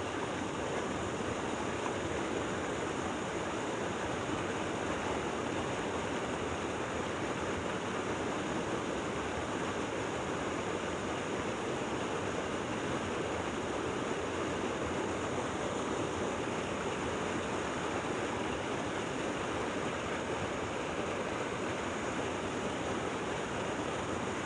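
Steady, even rush of fast-flowing water, unbroken throughout.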